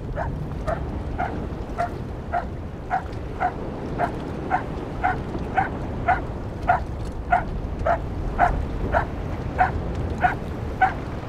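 A dog barking over and over at an even pace, about two short barks a second, over a steady low rush of wind and choppy water.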